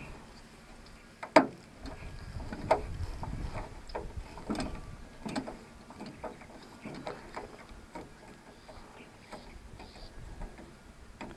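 A screwdriver backing screws out of a hand-push seed planter's plastic housing: faint scattered clicks and scraping, with one sharper click about a second and a half in.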